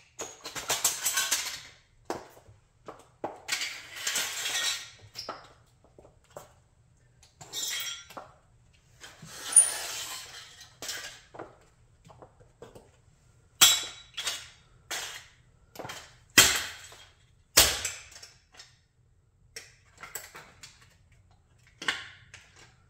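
Model Chrysler 300B car being crushed under high heels: its metal and plastic parts crunch, crack and clink in irregular bursts. Sharp single snaps and clacks of the heels on the concrete floor come in among them, the loudest in the second half.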